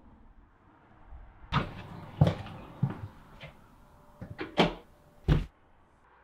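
Handling knocks against a painted wooden front door as a small leather-cased device is set on it and shifted: six or seven sharp clicks and knocks, irregularly spaced.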